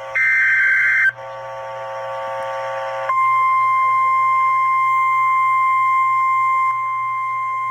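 Emergency Alert System tones: a one-second burst of the digital header data tones, then a buzzy tone for about two seconds, then about three seconds in a single steady, piercing alert tone begins and holds, dropping a little in level near the end. The alert tones announce the tornado warning that follows.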